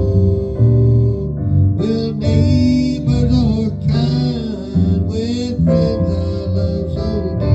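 Live gospel hymn played on guitar and keyboard, with a voice singing long, wavering notes over the accompaniment.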